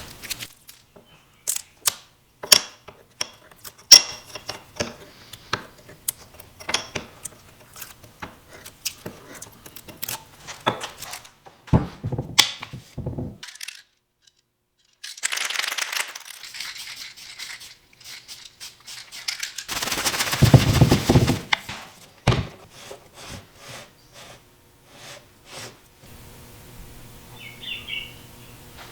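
Hand woodworking on a walnut bow-tie inlay. First comes a long run of sharp taps and knocks of tools on wood. Then there are two stretches of scraping, the second louder and heavier, about 20 seconds in.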